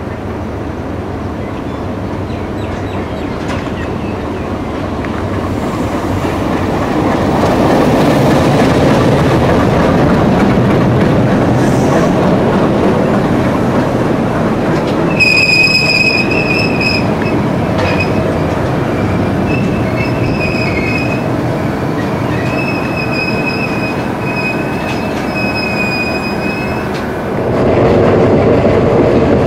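A diesel-hauled passenger train passing on the adjacent track: a rumble of wheels on rail that grows louder over the first several seconds as the locomotive and coaches come alongside. From about the middle the wheels give a high squeal on and off. Near the end it changes to the louder, steady running noise of a train under way.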